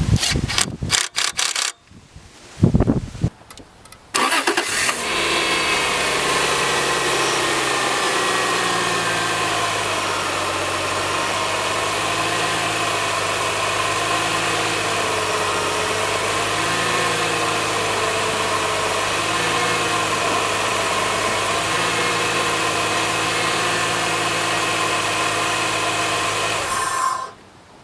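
A few clicks and knocks, then a Subaru 3.0L flat-six engine starts about four seconds in and runs at idle. The idle settles lower over the next few seconds, then holds steady until the sound cuts off near the end.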